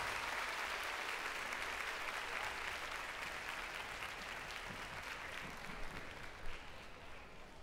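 Audience applauding, the applause gradually dying down, with one sharp knock near the end.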